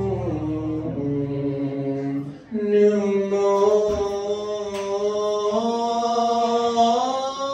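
Live singing: a voice holding long notes that step up and down in pitch, with a short break about two and a half seconds in. A low sustained instrument note sounds under the first second and a half, then stops.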